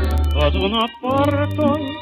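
Operetta song recording with orchestral accompaniment: a vibrato melody line over held bass notes, which change after a short break about a second in.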